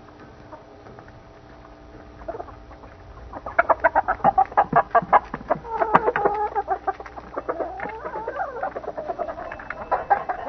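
Hens clucking: after a quiet start, a fast run of short clucks begins about a third of the way in, then gives way to longer, drawn-out calls that rise and fall in pitch.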